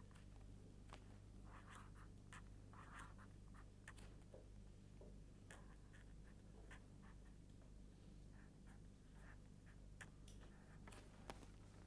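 Faint irregular taps and short scratches of writing on a board, over a steady low electrical hum.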